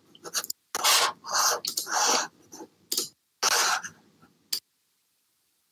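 A man's breaths close to a headset microphone: several breathy exhalations about half a second long, with a couple of short faint clicks.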